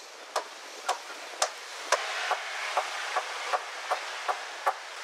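Chisel being struck into wood by hand, a sharp knock at each blow, about two blows a second in a steady rhythm.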